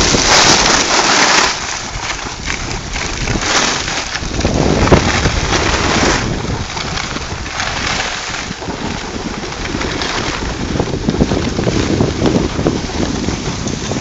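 Wind rushing over the microphone of a phone carried by a moving skier, mixed with the hiss of skis sliding on snow. It is loudest over the first second and a half, then lower and steadier.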